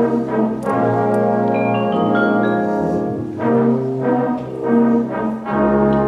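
A batterie-fanfare's brass section playing sustained chords. A climbing run of notes comes a second or two in, and two loud accented chords come in the second half.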